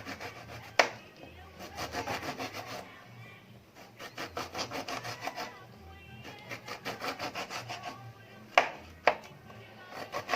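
A kitchen knife sawing back and forth through a lemon on a cutting board, in short bursts of quick strokes. The blade knocks sharply on the board once about a second in and twice near the end.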